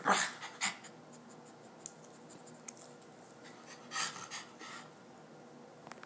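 Small dogs moving and scuffling on a couch, with scratching and rustling. There are short noisy bursts at the very start and again about four seconds in, with a few faint ticks between.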